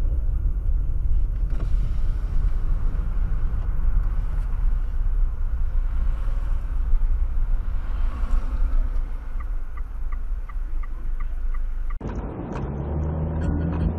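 Steady low rumble of a car on the move, as picked up by a dashcam. Near the end comes a run of quick, evenly spaced ticks, about two or three a second. About twelve seconds in, the sound cuts off abruptly and music begins.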